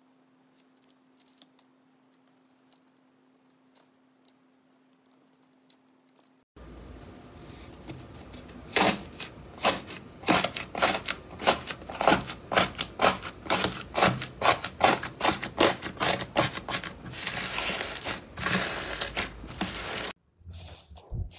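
Slime being pressed and worked by hand, giving a fast run of sharp clicks and pops, several a second. For about the first six seconds only a few faint clicks sit over a low steady hum before the louder clicking starts abruptly.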